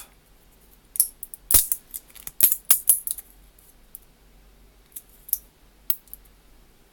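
3D-printed support material being snapped and peeled off a plastic part by hand: a series of sharp cracking clicks, bunched together in the first half, with a few more later.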